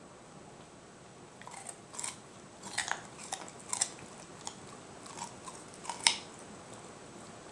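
A dog chewing a raw carrot: a string of sharp, crunchy bites starting about a second and a half in, with the loudest crunch about six seconds in.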